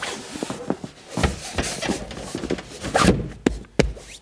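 Upholstered boat seat cushions being laid and pushed into place on the seat base: rustling and rubbing with soft thumps, and a few sharp knocks near the end.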